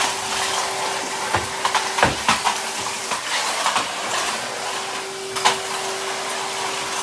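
Numatic Henry vacuum cleaner running with a steady whine and hiss of suction. Irregular clicks and rattles come as it sucks up debris, including bits of Christmas tree.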